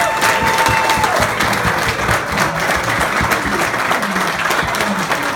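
Audience applauding steadily, a roomful of hands clapping, with one voice calling out briefly near the start.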